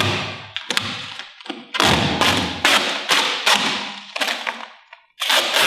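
Trimmed adhesive vinyl wrap film being peeled off a truck's plastic taillight lens and handled: crackling, rustling film with many small ticks and taps. The noise breaks off briefly near the end, then starts again.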